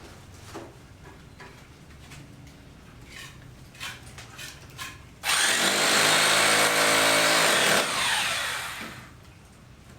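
A handheld power tool's motor starts suddenly about halfway through, runs at full speed for a couple of seconds, then is switched off and winds down with a falling whine. Light scattered knocks come before it.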